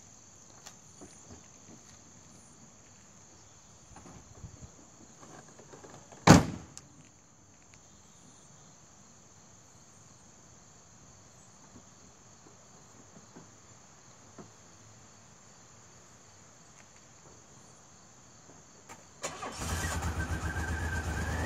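A DeLorean DMC-12's gull-wing door is pulled shut with one loud thud about six seconds in, over the steady chirring of crickets. Near the end the car's 2.85-litre PRV V6 cranks, catches and settles into a steady run.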